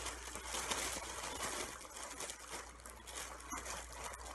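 Rustling and small scraping as hands rummage in a patterned fabric bag, feeling for the object inside.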